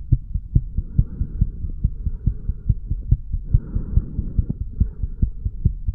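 Human heartbeat picked up from the chest over the mitral valve area: a quick, regular run of low thuds. A faint hiss comes and goes behind it.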